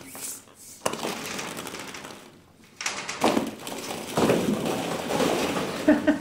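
Hollow plastic ball-pit balls clattering and rustling against each other as bodies roll through a pit full of them, with a sharp click about a second in and louder churning from about halfway. A voice starts near the end.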